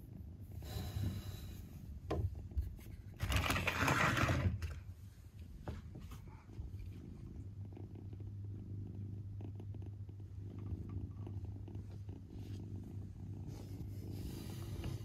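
British shorthair kitten purring, a steady low rumble. In the first few seconds two louder bursts of rustling come from a hand stroking its fur on the plush blanket.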